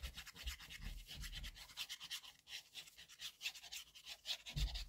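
Nozzle tip of a liquid glue bottle dragging along cardstock as a line of glue is laid on a glue flap: a faint, fast scratchy scraping, with a soft bump near the end.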